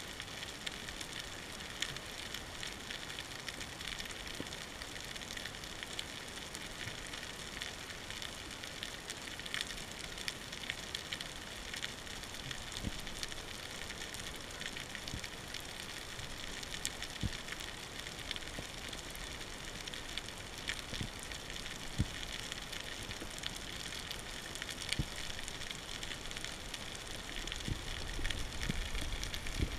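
Underwater ambience heard through a submerged camera: a steady crackling hiss made of countless tiny clicks, with a few louder clicks standing out. Near the end a low rumble of moving water rises.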